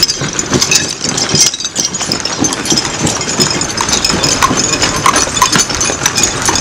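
An engine running steadily, with a rapid, irregular clatter of footsteps on gravel and knocks from metal hose couplings as firefighters run with rolled hoses.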